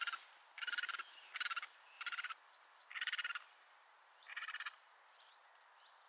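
An animal calling faintly: a series of six short rattling calls, each about a third of a second long, at uneven gaps of roughly half a second to a second, stopping a little before the end.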